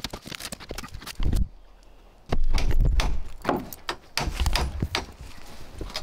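Steel pry bar levering at deck boards and framing from underneath: irregular knocks, clunks and scraping of metal on wood, with heavier thumps about a second in and through the middle as a deck board is forced up.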